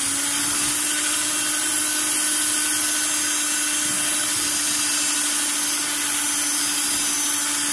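Electric hand mixer running steadily at one even pitch, its beaters whisking egg yolks with flour, milk and oil into a sponge batter.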